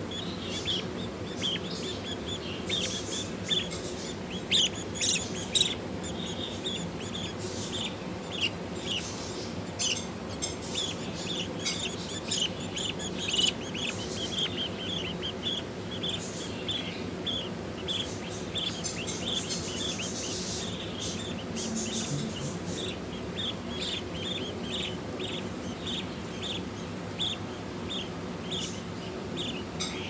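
Budgies chirping: a steady run of short, high, squeaky chirps, several a second.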